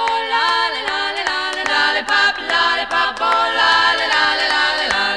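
Background music: a close-harmony vocal group singing, with a steady clicking beat.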